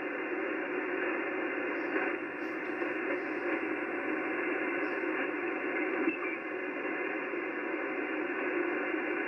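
Steady static hiss from a ham radio transceiver's speaker while it is tuned across the 80-metre band, with no station coming through clearly.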